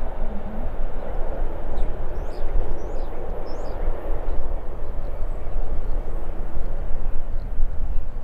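Airbus A319-114's CFM56 jet engines running with a steady roar during its landing, with a low rumble underneath. Faint short bird chirps sound over the top.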